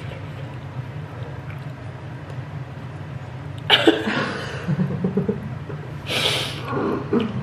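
A woman laughing in two short bursts, about four and six seconds in, over a steady low hum.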